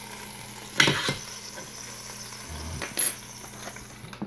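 Ribeye steak sizzling on the hot metal of a Ninja Foodi as it is flipped, with a steady hiss and a sharp metal clink about a second in and another at about three seconds. The hiss cuts off suddenly at the end.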